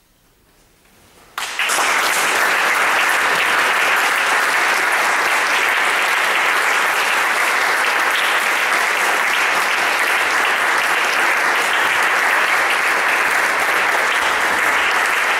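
Audience applauding at the end of a solo trombone performance, breaking out suddenly about a second and a half in after a near-silent pause and going on steadily.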